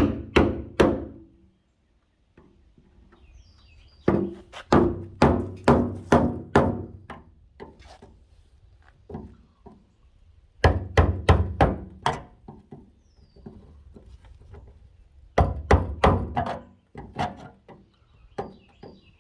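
Hammer blows in bursts of about five to seven strikes, roughly two a second, with a pause of a few seconds between bursts.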